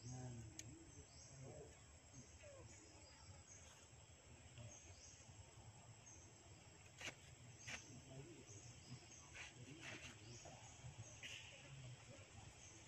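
Faint outdoor forest ambience: a high chirp repeats about every half second, with a few light clicks near the middle.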